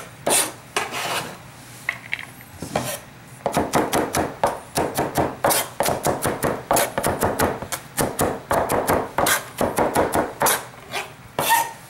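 Chef's knife chopping diced onion on a plastic cutting board: a long run of rapid, even knife strikes against the board, which begins a few seconds in after a few scattered knocks.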